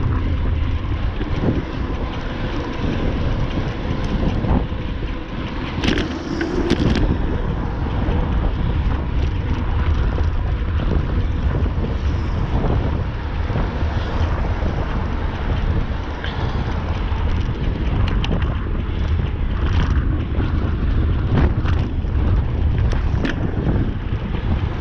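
Strong wind buffeting the microphone of a camera on a moving bicycle, a heavy low rumble with scattered sharp clicks and knocks.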